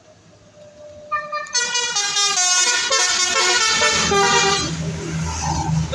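Bus 'telolet' horn: a multi-tone horn playing a short tune of stepped notes, starting about a second in. A low engine rumble joins in the second half.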